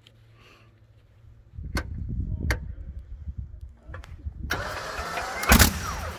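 Rolls-Royce Merlin 25 V12 aero engine being started: low cranking with a few sharp pops about a second and a half in, then the engine catches about four and a half seconds in and runs, with one loud bang just after it fires.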